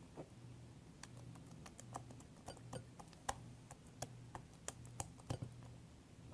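Slime being mixed: faint, irregular small clicks and taps, over a faint low hum that swells and fades about once a second.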